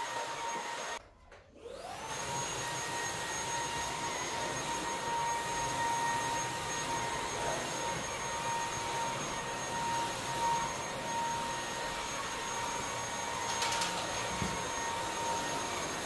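Beko stick vacuum cleaner running over a rug, a steady high motor whine over the rush of suction. It cuts out briefly about a second in, then comes back rising in pitch and settles.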